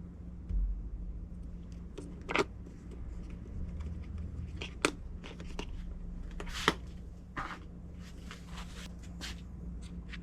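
Scattered clicks and light knocks of engine parts being handled during a piston and wrist-pin install, after a soft thump about half a second in, over a steady low hum.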